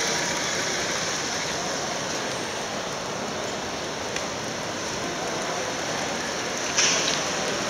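Steady rushing background noise of the exhibition hall, with a small click about four seconds in and a short, sharper knock near the end.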